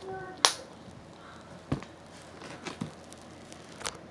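A few sharp clicks and knocks from objects handled on a table, the loudest about half a second in.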